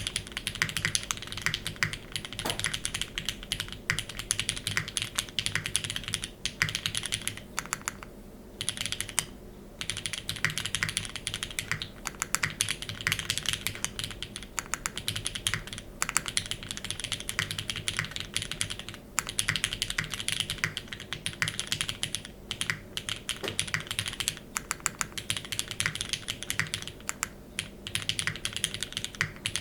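Steady, fast typing on a Keycult No. 2/65 mechanical keyboard fitted with lubed, filmed retooled Cherry MX Black linear switches on an aluminium plate, with GMK keycaps. The keystrokes run on without let-up apart from two brief pauses about eight and nine and a half seconds in.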